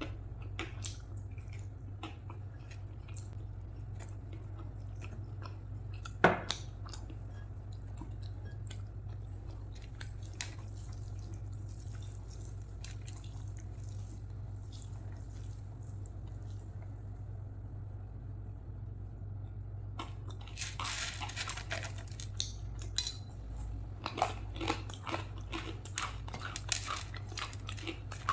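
A person chewing and smacking on a mouthful of rice and curry, close to the microphone. Scattered wet clicks come throughout, one sharp click about six seconds in, and busier chewing in the last third, over a steady low hum.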